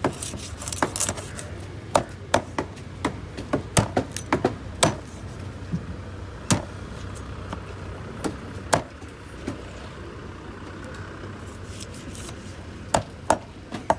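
A large knife chopping through a tuna on a wooden board: sharp, irregular chops, close together in the first five seconds and sparser after. Then comes a pause of a few seconds before three more chops near the end.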